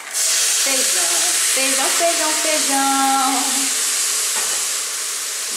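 Cooked beans poured into a hot pressure cooker of freshly sautéed rice, setting off a loud sizzle that starts suddenly and holds steady.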